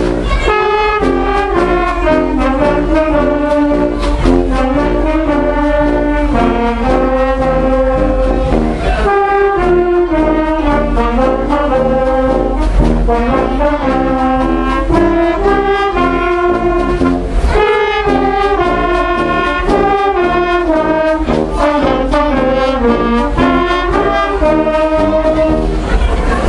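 Brass band playing a march: trumpets, trombones and horns carry the tune over a sousaphone bass line and a steady bass drum beat.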